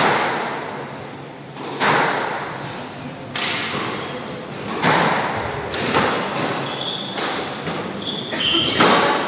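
Squash ball cracking off rackets and the court walls, about half a dozen sharp hits a second or two apart, each ringing on in the enclosed court. Short squeaks near the end.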